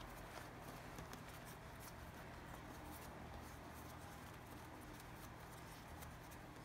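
Faint soft patter and light taps of hands braiding and pinching dough on a countertop, over a low steady room hum.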